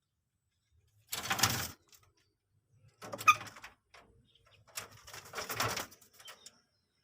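Common moorhen giving three short, harsh, crackly calls, a second or so apart.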